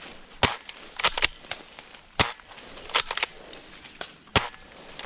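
Airsoft guns firing: a string of sharp snapping shots, some single and some in quick clusters of two or three, about a second apart.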